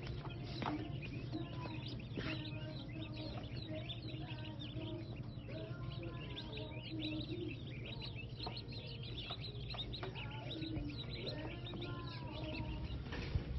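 A crowd of baby chicks in brooder tubs peeping continuously, many short high chirps overlapping, over a steady low hum.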